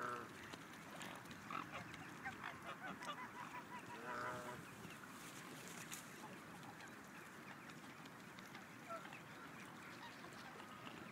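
Geese honking: a louder honk right at the start and another about four seconds in, with shorter calls between them, then only a few faint calls.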